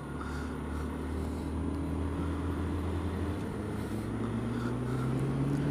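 Honda Z125 Monkey's small single-cylinder engine pulling under acceleration, its note rising slowly in pitch and getting louder through the second half, over road and wind noise.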